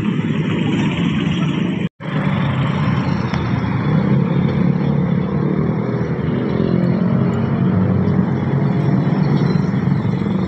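Motorbike engine and road noise while riding, a steady rush with a low hum, broken by a brief dropout about two seconds in.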